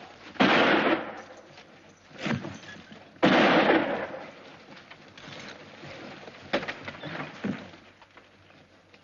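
Two revolver shots about three seconds apart, each a sharp crack with a short echoing tail, with a few quieter knocks in between and after.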